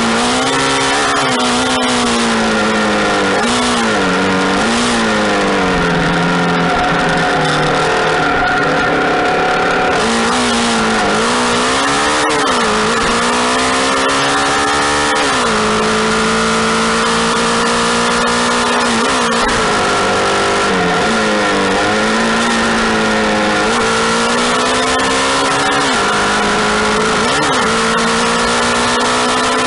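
Motorcycle engine heard from on the bike, its pitch repeatedly dropping and climbing again as the rider shifts gears and works the throttle, and holding steady for a few seconds in the middle. A steady rush of air runs underneath.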